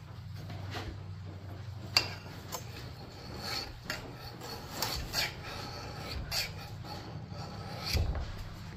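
Irregular rubbing and scraping from hands working at the edge of a clamped double-bit axe head, with one sharp click about two seconds in, over a steady low hum.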